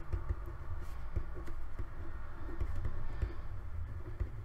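Pen writing on paper, with the quick irregular scratches and taps of handwriting over a steady low hum.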